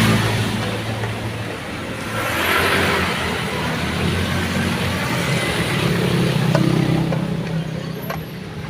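A motor engine running with a low steady hum that swells louder twice, around the start and about two and a half seconds in.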